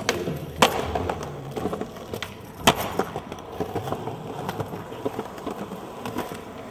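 Skateboard rolling over rough pavement, its wheels making a steady rolling noise broken by sharp clacks of the board hitting the ground: two near the start and a louder one about two and a half seconds in.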